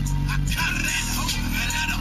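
Rap music played loud through a bass-heavy car stereo system, heard inside the truck's cab: deep, heavy bass under rapped vocals.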